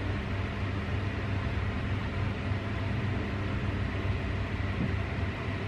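Steady low hum and rumble of background noise, unchanging throughout.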